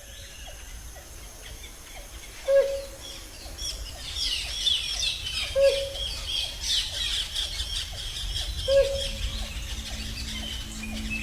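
Tropical rainforest birds calling. A short low note that drops in pitch repeats about every three seconds, and a busy flurry of high chirps swells in the middle, over a steady low background hum of the forest.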